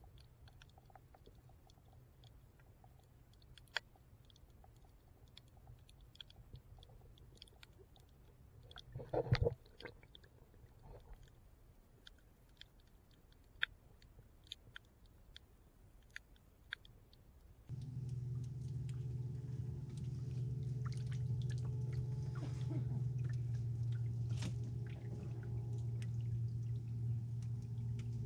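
Faint scattered crackling clicks picked up by a camera underwater, with one louder thump about nine seconds in. About two-thirds of the way through, this gives way abruptly to a louder steady hum with several held tones.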